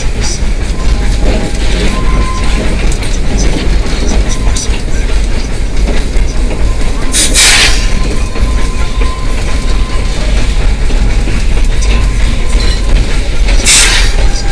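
Narrow-gauge steam locomotive No. 190, a Baldwin 4-6-0, heard from the cab while under way: a loud, steady rumble and rattle of the engine and running gear. Two short bursts of hiss come through, about seven seconds in and again near the end.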